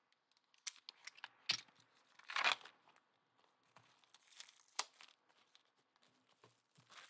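Clear plastic security-seal wrap being torn and peeled off a trading-card box: a run of sharp crinkles and tears, loudest about two and a half seconds in.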